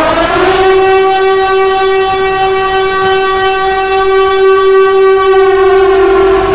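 Siren sound effect: a single wailing tone that rises in pitch over the first second, holds steady for several seconds, then begins to fall slightly near the end.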